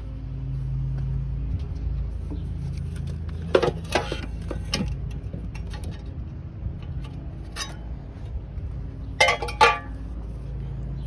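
Short metallic clinks and taps of a cut steel pipe piece being handled, in two clusters, about three and a half seconds in and again near the nine-second mark, with a single tap between. Under them runs a steady low hum.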